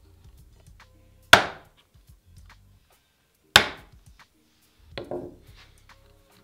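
Wood chisel chopping into a board, two sharp strikes a little over two seconds apart, cutting out the waste of a rabbet. About five seconds in, a softer clattering knock as the steel chisel is laid down on the wooden bench.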